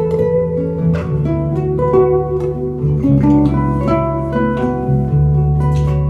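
Nylon-string classical guitar played fingerstyle: a plucked melody of changing notes over low, ringing bass notes.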